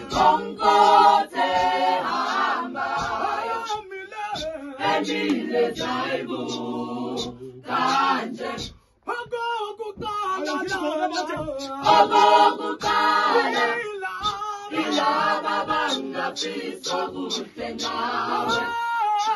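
Gospel choir singing a cappella in harmony, with women's and men's voices, with no instruments. The singing breaks off briefly about nine seconds in, then resumes.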